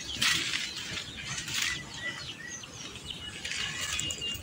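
Leaves and branches of a lemon tree rustling in several short bursts as they are pushed aside and handled, with birds chirping in the background.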